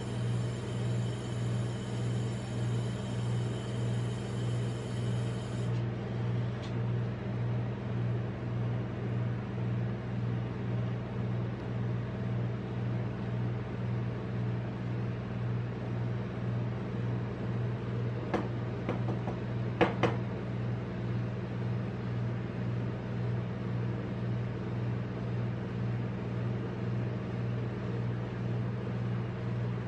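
Refrigeration unit of a rolled-ice-cream cold plate humming, a low drone that pulses evenly. A few light clicks come about two-thirds of the way through.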